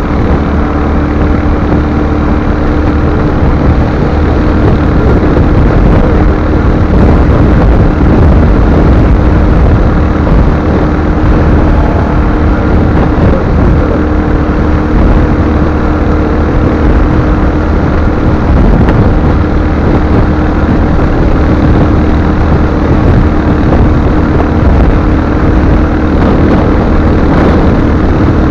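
Royal Enfield Hunter 350's single-cylinder engine running at a steady cruise while riding, under loud, steady wind noise on the microphone.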